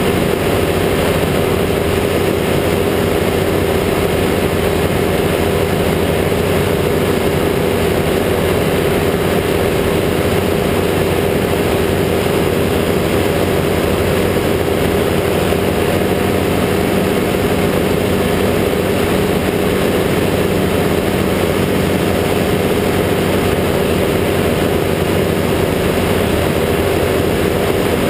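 Ultralight trike's rear-mounted pusher engine and propeller running steadily at an even pitch in flight, with wind rushing over the open cockpit.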